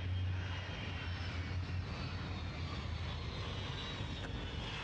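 Jet engines of a landing Boeing 707 freighter: a steady rush with a high whine that slowly falls in pitch, and a low rumble that fades about two seconds in.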